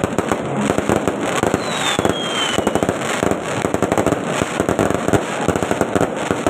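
Fireworks going off in a dense, rapid crackle of pops, with a high whistle falling in pitch about two seconds in.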